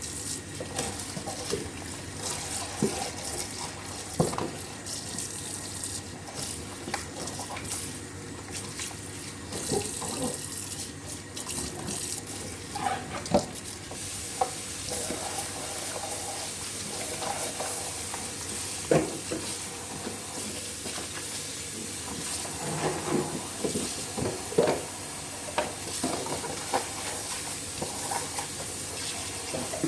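Tap water running into a sink while dishes are washed, with scattered clinks and knocks of dishes being handled. The rush of water gets stronger about halfway through.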